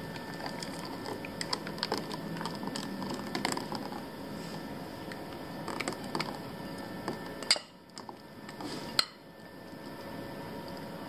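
A silicone spatula scraping and clicking against a glass mixing bowl as a thick cream mixture is poured out into a glass baking dish, with two sharp knocks of the bowl or spatula late on.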